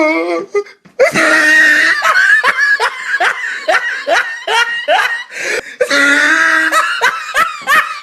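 Loud human laughter in rapid repeated bursts, with a brief break about a second in and another just before six seconds.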